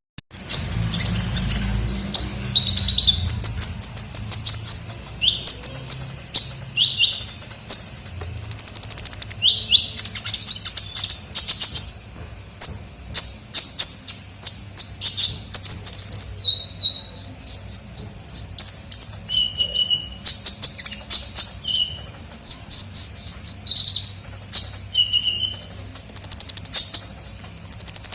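Kolibri ninja sunbird singing non-stop: a fast, high-pitched run of chirps, rattling trills and short falling whistles, with a few longer steady high whistles.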